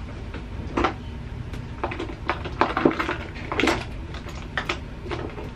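Makeup products and containers being picked through and set down on a counter: irregular small clicks and knocks, the loudest about a second in and around three to four seconds in.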